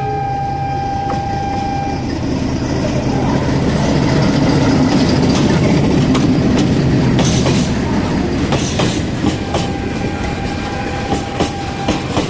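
GKD1 diesel shunting locomotive passing close by: its horn ends about two seconds in, then its engine drone swells as it goes by, followed by the clack of wheels over rail joints and the crossing. A fainter steady tone sounds near the end.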